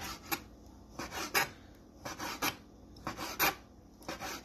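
Kitchen knife slicing raw chicken breast into thin strips on a cutting board: a rasping stroke about once a second, each ending in a sharp tap as the blade meets the board.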